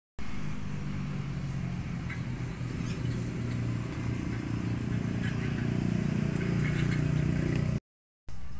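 An engine running steadily, a low hum that grows louder toward the end, with faint scattered clatter above it. It starts and cuts off abruptly.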